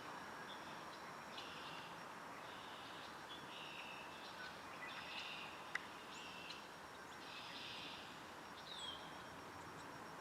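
Small birds chirping faintly in short repeated calls, with one short falling whistle near the end, over a steady outdoor hiss. A single sharp click about six seconds in.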